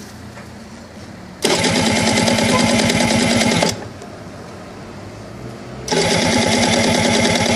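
Aprilia RS 125's two-stroke single-cylinder engine being cranked by its electric starter in two bursts of about two seconds each, with a fast, even chugging. The engine does not catch: a hard cold start.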